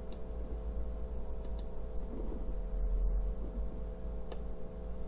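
A few sharp computer-mouse clicks: one at the start, a quick double click about a second and a half in, and another about four seconds in. Behind them is a steady electrical hum with a low rumble.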